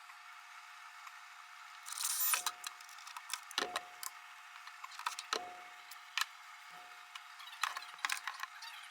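Scattered sharp clicks, knocks and light metallic clatter of drawer-slide hardware and tools being handled, with a short rustle about two seconds in, over a faint steady tone.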